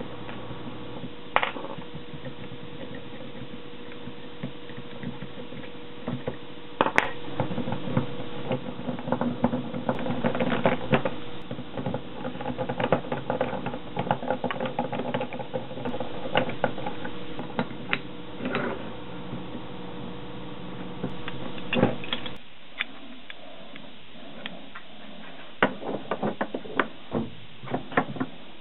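Clicks, taps and scrapes of small steel screws and a hand screwdriver as clamps are screwed onto a cast aluminium tailstock base, over a steady hum that stops about two-thirds of the way through. Near the end come a few lighter knocks and scrapes as the aluminium part is set on the lathe ways.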